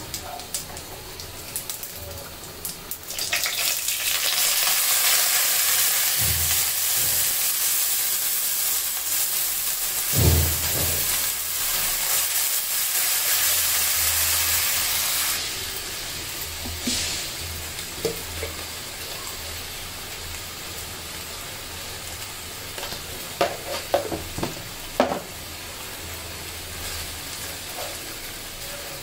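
Oil sizzling in a nonstick wok as rice is tipped into the fried onions and spices about three seconds in. The sizzle turns loud, then eases off after about twelve seconds, while a wooden spatula stirs the rice. There are a few knocks of the spatula against the pan near the end.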